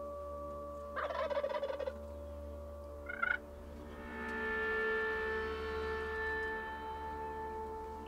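Wild turkey gobbler gobbling once, a rapid rattling call lasting about a second, starting about a second in. A short, higher call follows about three seconds in. Steady ambient background music with long held tones runs underneath.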